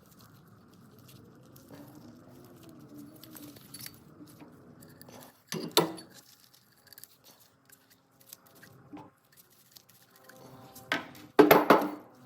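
Metal parts and tools clinking and clanking as they are handled, with one sharp clank about halfway through and a louder burst of clanks near the end that ring briefly.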